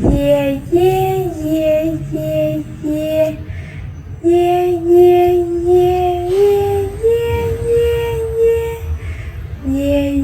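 A high voice chanting "yeah" over and over in a sing-song tune, short repeated syllables with a few longer held notes that step up in pitch midway. A sharp click right at the start.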